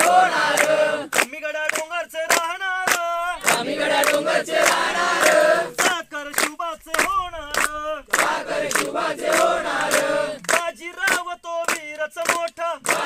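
A group of people singing or chanting together in unison while clapping their hands in a steady rhythm, a few claps a second.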